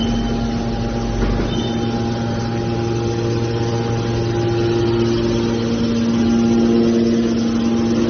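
Hydraulic scrap metal baler's electric motor and hydraulic pump running with a steady hum; a higher tone joins about three seconds in.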